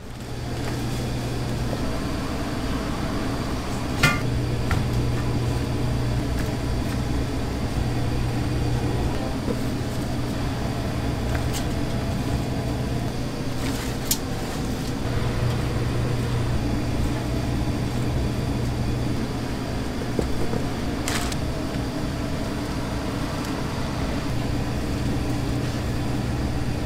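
Steady low mechanical hum of restaurant-kitchen equipment, with a few sharp clinks scattered through it.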